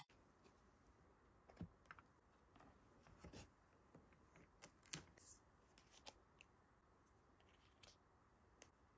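Faint handling sounds of a photo album and instant photo prints: a few soft taps and short paper rustles scattered through, as a card page is turned and prints are laid down on it, the clearest about five seconds in.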